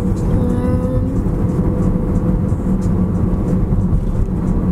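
Steady low rumble of road and engine noise inside a moving car's cabin, with a brief pitched tone in the first second.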